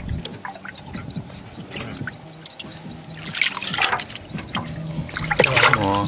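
Shallow water trickling and splashing as a koi is handled and thrashes in the water. Louder splashes come about halfway through and again near the end.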